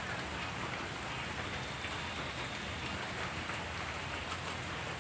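Steady rain falling, an even patter of drops.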